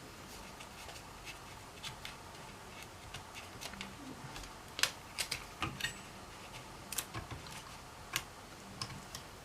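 Scattered small clicks and taps of parts and tools being handled inside an opened laptop, a few sharper ones about halfway through.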